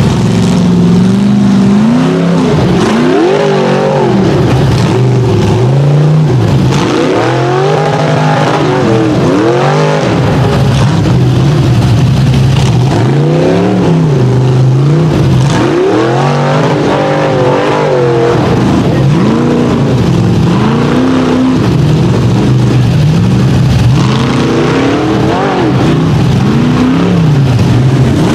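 A rock bouncer buggy's engine is revved hard over and over as the buggy claws up a slick, muddy hill. The pitch climbs and drops every second or two on top of a steady low drone.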